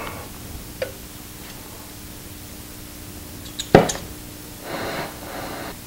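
Henrob 2000 oxy-acetylene torch being lit with a flint striker: a sharp pop of ignition a little under four seconds in, then the yellow acetylene flame hissing for about a second.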